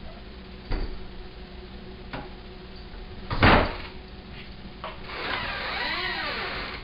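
A cat working the lever handle of a glass-panelled French door with her paws: a few knocks and rattles of the handle and latch, with one loud clatter about halfway through. Near the end the door comes open, with a longer scraping rub that wavers up and down in pitch.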